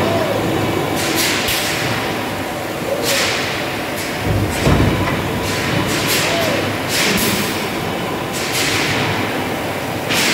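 Automated hot-forging press line for bearing rings running: a steady din of heavy machinery with short hissing blasts every second or two and one heavy thud about four seconds in.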